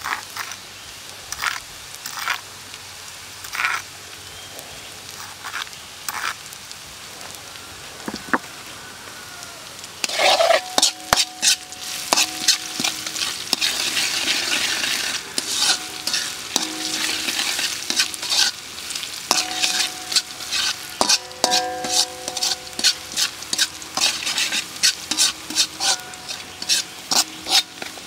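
A metal ladle stirs and taps chopped chilli and aromatics frying in oil in a metal wok, with a few separate clinks at first. About ten seconds in, the oil sizzles loudly and the ladle scrapes and clinks quickly against the wok, which rings briefly with each stroke.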